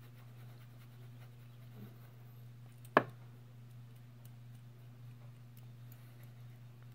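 Steady low hum with one short, sharp click about three seconds in.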